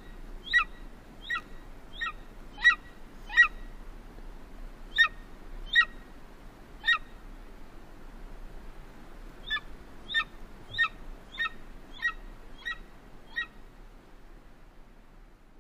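Golden eagle calling: a series of short, high yelping notes, each a quick downward slur, about one and a half a second. They come in three runs broken by pauses of a second or two.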